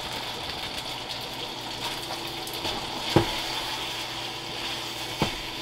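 Spaghetti with egg and cheese sizzling in a hot frying pan while being tossed and stirred with chopsticks, a steady frying hiss. Two sharp knocks of the chopsticks against the pan, about three and five seconds in.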